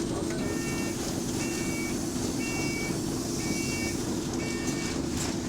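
A bus's electronic warning beeper sounding five times, about once a second, each beep about half a second long, over the steady running of the bus engine.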